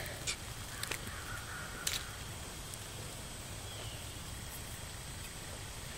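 A few sharp clicks and snaps as a clump of honey mushrooms is pulled apart by hand in the first two seconds, with a faint bird call in the distance; afterwards only a steady, faint woodland background.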